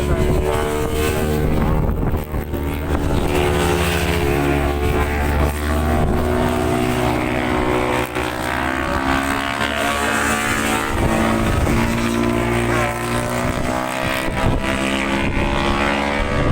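Racing motorcycle engines running at high revs on the circuit, several engine notes overlapping and holding a fairly steady pitch throughout.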